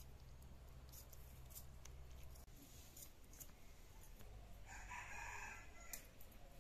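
Faint scraping and small clicks as a pabda fish is cleaned against an upright boti blade, then a rooster crows once, about a second long, a little past the middle.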